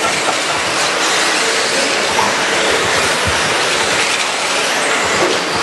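Electric RC racing trucks with 13.5-turn brushless motors running laps on a dirt oval: a steady, even whirring hiss of motors and tyres.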